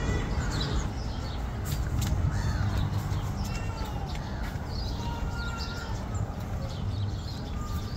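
Birds chirping and calling with many short, high notes and a few brief whistles, over a steady low rumble.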